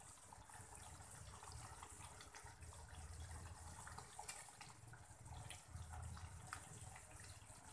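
Faint wet plops and small clicks as raw chicken pieces are dropped into a pot of thick curry sauce, over a low steady hiss.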